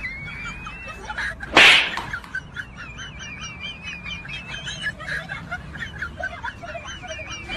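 Birds chirping and warbling steadily, many short calls a second. One short, loud burst of noise cuts in about a second and a half in.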